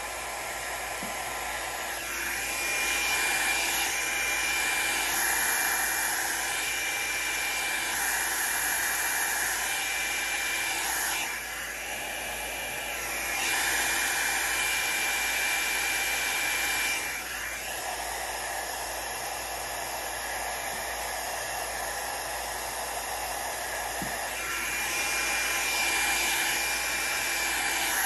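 Revlon hot-air styling brush, used as a hand-held hair dryer, running with a steady rush of air and a thin high whine as it blows across wet alcohol ink. Its sound swells and drops back several times.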